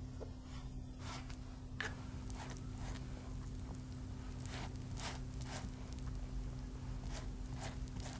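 A steady low hum with a scattered series of soft, short rustles and light taps, like gloved hands handling kitchen things.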